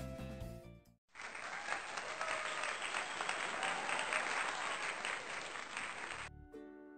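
Applause, a steady clatter of many hands clapping, lasting about five seconds; it starts after the music fades out and stops abruptly as the music comes back near the end.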